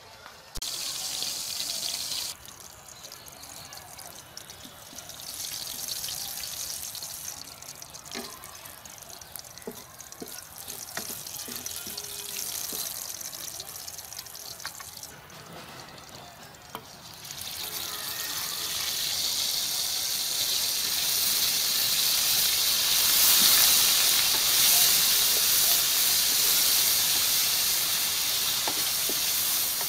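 Ghee and oil sizzling in a steel kadai as whole spices fry, with a short loud sizzle about half a second in and a few light clicks. From about 18 s a spice paste goes into the hot fat and is stirred with a wooden spatula, and the sizzle grows much louder and stays strong.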